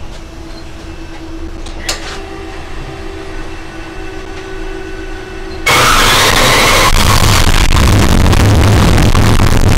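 A 408-cubic-inch, 700-horsepower LS V8 on an engine dyno fires up suddenly a little over halfway through and keeps running loud and steady, heard from the dyno control room. Before it catches there is only a low steady hum and a single click.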